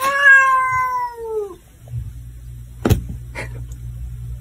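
A domestic cat gives one long meow, falling in pitch, lasting about a second and a half. A steady low hum then starts, with a sharp click about three seconds in.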